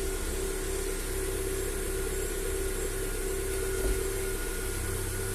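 Lada Vesta SW Cross petrol engine idling steadily shortly after a cold start, the knock it makes when cold now gone. The owner suspects piston slap or a hydraulic lifter as the cause of that knock.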